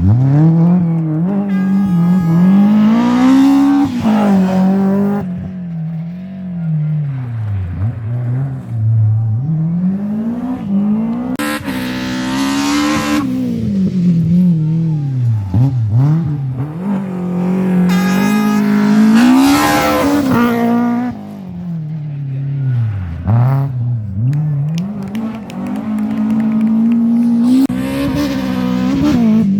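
Rally car engines revving hard up and down, the pitch climbing and then dropping sharply again and again as the cars lift off and shift. Several bursts of tyre squeal come as the cars slide through corners.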